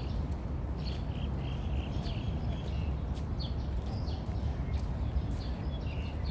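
Small birds chirping, with short high calls scattered throughout, over a steady low rumble.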